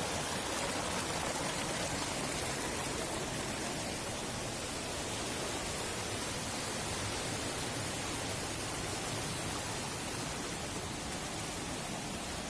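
Waterfall, water falling and rushing in a steady, unbroken wash of noise.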